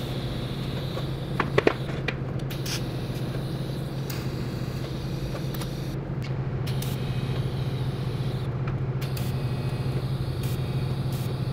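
Steady low mechanical hum, with two sharp metallic clicks about a second and a half in as steel parts are handled on a steel welding table.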